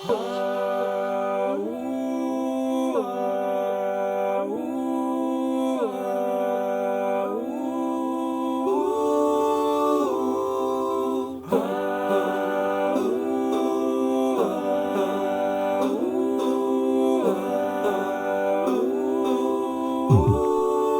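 Background music of wordless humming voices in layered harmony, the chords shifting about every second or two.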